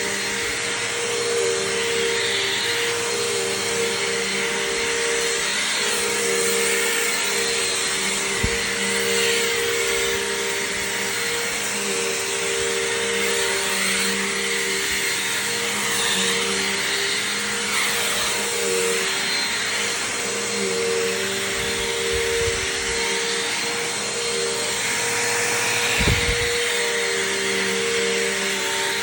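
Bissell PowerForce Compact upright vacuum running steadily as it cleans the floor, its motor hum wavering, with a couple of brief low thumps about a third of the way in and near the end.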